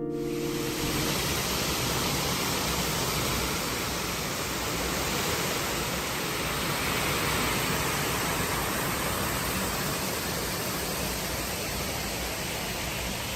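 Steady rushing of falling or fast-flowing water, a continuous even hiss with slight swells.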